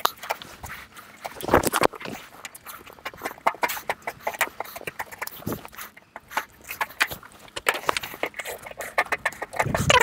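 Irregular clicks and metallic taps of steel standing-seam roofing sheet being bent and crimped by hand with a hand seamer at the eave, with a louder burst about a second and a half in and again near the end.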